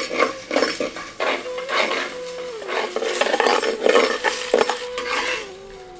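Whole spices (coriander seeds, dry red chillies, cinnamon, star anise) rattling and scraping as a slotted spatula stirs them around a clay pot while they dry-roast, in quick irregular strokes that stop shortly before the end. Soft background music holds long notes underneath.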